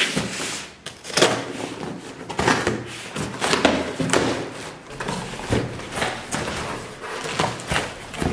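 Scissors cutting through packing tape on a cardboard box, with irregular snips, scrapes and thuds as the box is shifted on the table and its cardboard flaps are pulled open.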